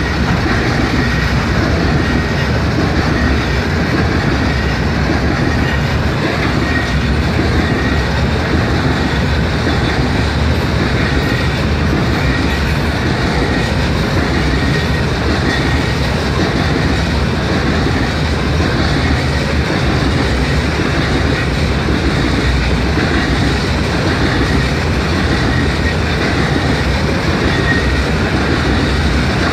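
Loaded rock train's open-top aggregate hopper cars rolling steadily past, a continuous wheel-on-rail rumble that does not let up.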